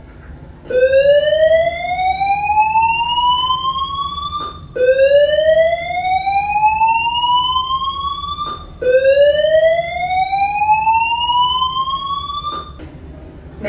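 Fire alarm evacuation system sounding its slow-whoop tone: three loud rising sweeps, each about four seconds long, gliding upward in pitch and then dropping back to start again.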